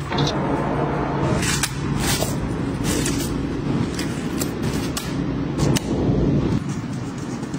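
Kitchen food-preparation sounds: scattered clatters and soft knocks of food being handled in bowls and a pan, over a steady low hum.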